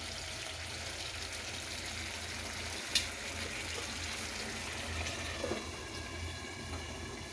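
Chicken curry simmering in a pan on a gas stove, a steady bubbling hiss, with one sharp click about three seconds in. A steel lid is set on the pan near the end.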